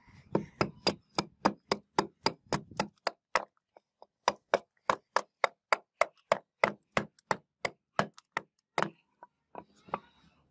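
Restored hatchet chopping into a wooden beam: quick, even strikes about four a second, with a short pause about a third of the way through and a few lighter blows near the end.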